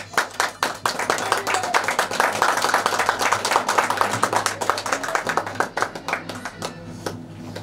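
People clapping their hands in a dense, quick run of claps that dies away near the end.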